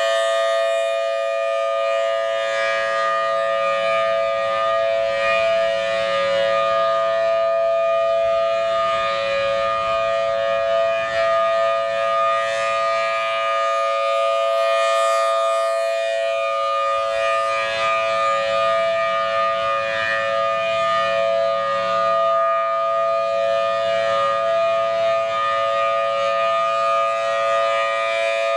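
Federal Signal Thunderbolt 1000T siren sounding a loud, steady two-tone chord at a level pitch, its upper tones swelling and fading every several seconds.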